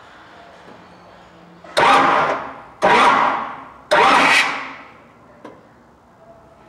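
Car engine tried for a start three times about a second apart, each burst starting sharply and dying away without the engine running. It is a no-start that the mechanics put down to the distributor not making spark.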